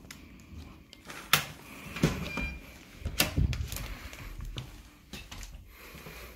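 A few sharp clicks and knocks at irregular intervals, most of them in the first half.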